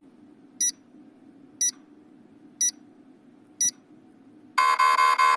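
Countdown timer sound effect: four short high beeps, one a second, then a louder buzzer about four and a half seconds in that signals time is up, cutting off suddenly.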